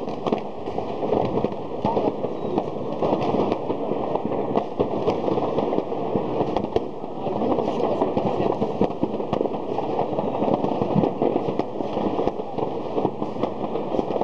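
Many fireworks and firecrackers going off at once across a city: a continuous wash of pops, crackles and bangs, with no pause between them.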